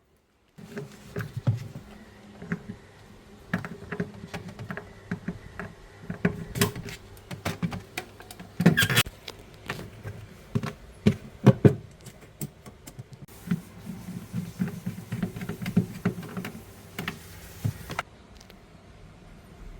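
Irregular clicks, taps and knocks of hands working on a refrigerator's parts, over a steady low hum.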